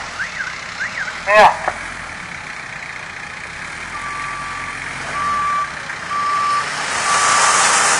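A vehicle's reversing alarm beeps about once a second from about halfway through, signalling a vehicle backing up during a snow recovery. Near the end a rushing vehicle noise grows louder under the beeps.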